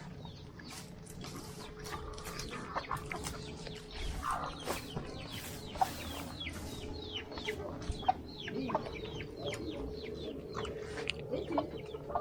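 Domestic chickens clucking, with many short high calls sliding downward in pitch, several a second, over a faint steady hum.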